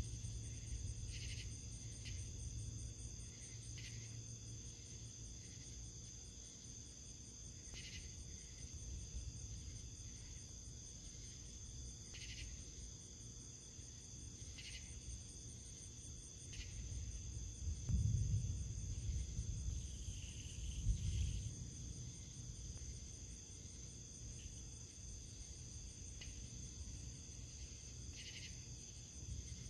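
Insects, crickets by the sound, chirring steadily at a high pitch, with a couple of low rumbles about two-thirds of the way in.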